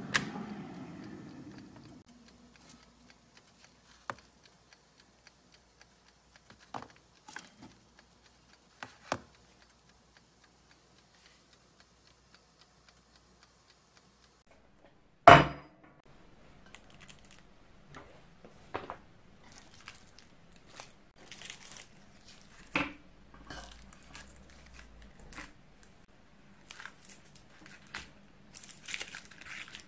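Scattered small clicks and knocks of baking things being handled, with one sharp knock about halfway through, then the crinkle and rustle of paper cupcake liners as chiffon cupcakes are lifted and set on a wire cooling rack near the end.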